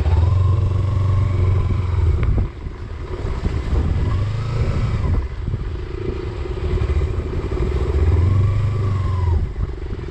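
Motorcycle engine running under way, its note rising and falling a few times as the throttle is worked.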